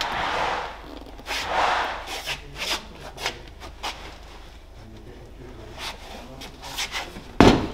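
A car's front seat being lifted out through the door opening: rubbing and scraping of the seat's frame and cloth against the door sill and trim, with a few clicks, then a loud thump near the end.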